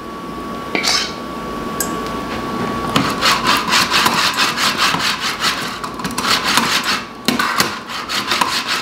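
Spaetzle maker's stainless-steel hopper slid quickly back and forth across its perforated grater plate, a rhythmic metal-on-metal scraping of several strokes a second, starting about three seconds in, briefly pausing near the end. A single knock comes about a second in.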